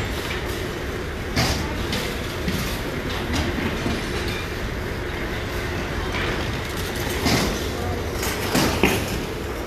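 Metal shopping carts rattling and clanking several times over a steady low rumble of machinery, around the store's cart escalator.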